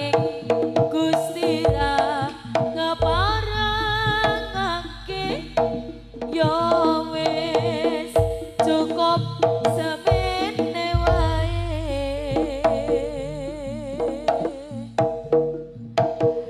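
Live Javanese jaranan ensemble music: busy hand-drum patterns with deep drum hits under a wavering, ornamented melody line with vibrato.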